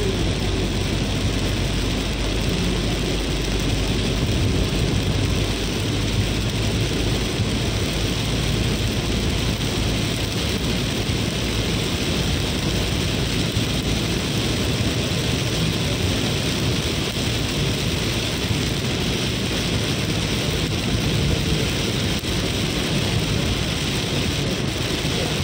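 Heavy rain drumming on a Mahindra Scorpio SUV's roof and windscreen, heard from inside the cabin as a steady rush, mixed with the vehicle running and its tyres on the wet road.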